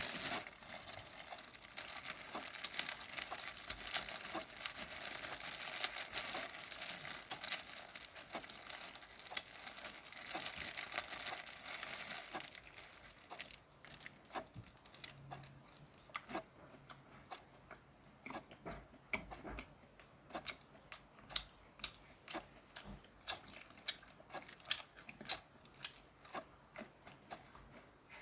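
Steamed shrimp being peeled and eaten: shells crinkling and crackling, with chewing and many sharp clicks. A dense rustling fills about the first half, after which the clicks come singly with short gaps.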